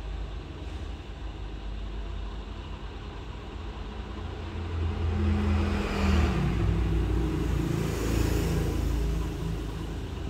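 Steady low hum and hiss of a hot-air rework station blowing on a phone board while a battery connector is soldered on. From about halfway through, a louder engine-like sound swells with a shifting pitch and fades near the end, fitting a motor vehicle passing outside.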